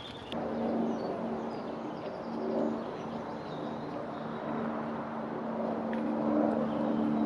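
A motor engine humming steadily, coming in suddenly just after the start, with a few faint bird chirps above it.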